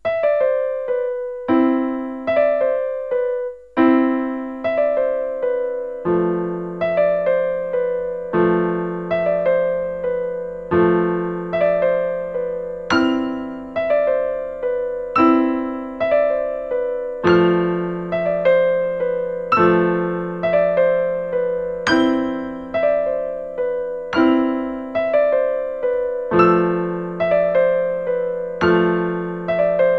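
Solo piano music begins abruptly: a gentle, evenly paced melody of struck notes that ring and fade, over low chords that change about every two seconds.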